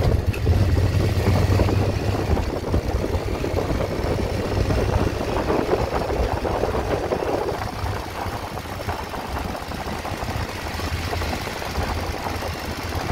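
Motorcycle engine running at low speed as the bike rolls along, a steady low rumble that is loudest in the first seconds and eases off after about eight seconds.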